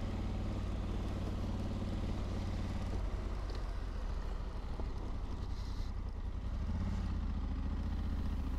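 2022 Honda Africa Twin DCT's parallel-twin engine running steadily at cruising speed on a gravel road, with a low even hum and wind and road noise. The engine note rises a little near the end.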